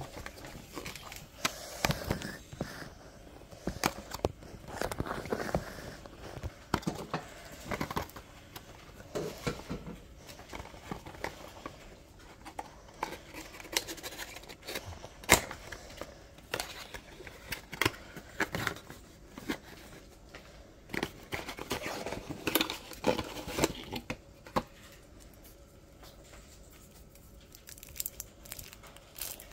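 A cardboard toy box being torn open and handled, then the clear plastic shrink-wrap around a toy dinosaur egg crinkling as fingers pick at it: irregular tearing and crinkling with many sharp clicks.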